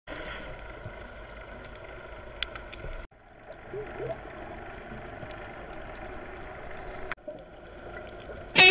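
Muffled underwater sound picked up through a GoPro Hero3's waterproof housing: a steady hum with a few faint clicks, broken off abruptly twice where the clips are cut. Loud guitar music starts right at the end.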